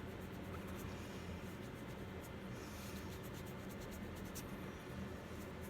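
Faint scratching strokes and small ticks from hand work on a vinyl reborn doll, over a steady low hum.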